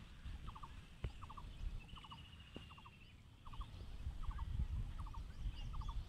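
An animal calling over and over, faintly: quick clusters of three or four short notes about every three-quarters of a second, with a brief high trill about two seconds in, over a low rumble.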